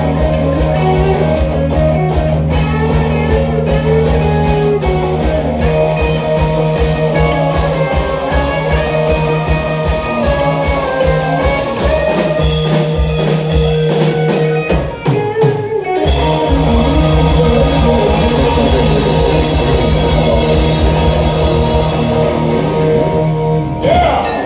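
Live rock band playing loudly: electric guitars, drum kit and a singer. About fifteen seconds in the beat breaks off briefly, then the band holds long chords over the drums and stops on a final chord near the end.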